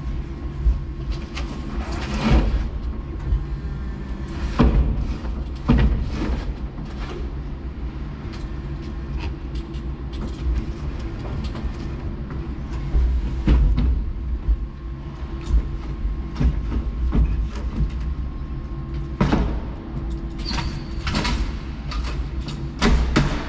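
Steady low machine hum heard from inside a forklift cab, with scattered knocks and clatter, several of them close together near the end.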